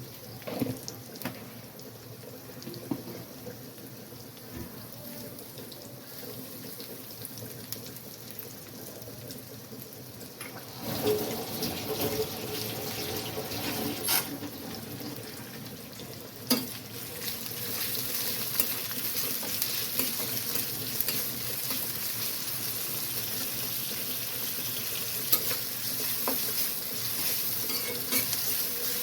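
Food frying in a pan, a steady sizzle that grows louder about halfway in, with a few sharp clinks of a utensil against the pan.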